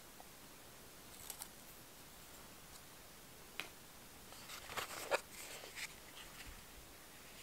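Light handling of small plastic items from an iPhone box: a few sharp clicks, then a cluster of crisp plastic taps and rustles about four to six seconds in as the EarPods' plastic case is lifted out of the box tray.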